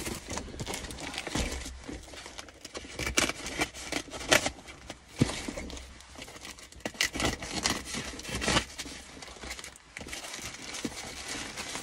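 A plastic mailer bag around a parcel crinkling and rustling as it is handled and opened, with scattered sharp clicks and knocks.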